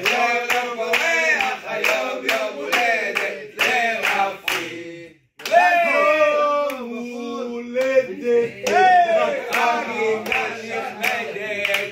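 A group of voices singing a birthday song together while clapping along in a steady rhythm. About five seconds in, the singing and clapping break off briefly, then come back with long held sung notes and more clapping.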